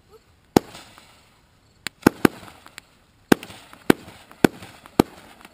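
Consumer firework cake going off: about eight sharp aerial bangs in uneven succession, some in quick pairs, each with a brief tail.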